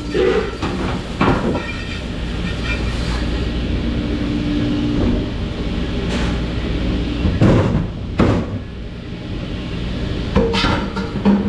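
Dishes and racks knocking and clattering now and then, about seven sharp knocks, over a loud steady machine hum.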